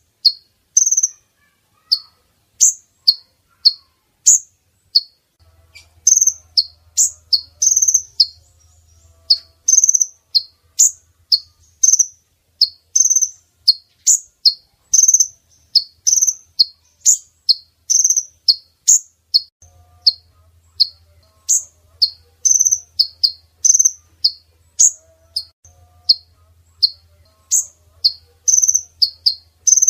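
Female kolibri ninja sunbird calling: short, sharp, high chirps repeated about twice a second. It is the female call used as a lure to draw in males.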